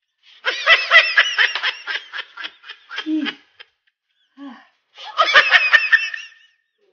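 A person laughing hard in three bouts of rapid, pulsing laughter: a long one starting about half a second in, a short one around three seconds, and another about five seconds in.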